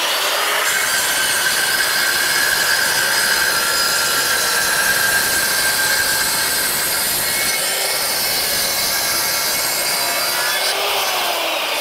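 Handheld circular saw running in a guide rail and cutting through a chipboard panel: a loud, steady whine with the rasp of the blade in the board. Near the end the trigger is released and the motor winds down in a falling pitch.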